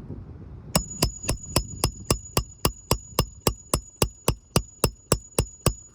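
A fast, even run of about nineteen sharp metallic clicks, nearly four a second, with a faint steady high ring under them.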